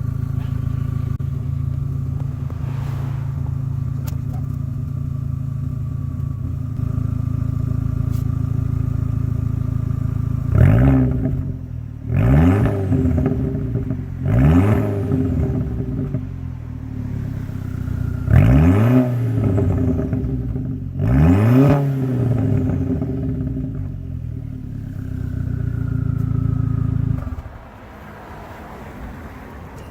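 Audi B5 A4 engine running with its exhaust cut off, so the open pipe is unmuffled. It idles steadily, is blipped five times, rising and falling, about ten to twenty seconds in, idles again and is shut off near the end.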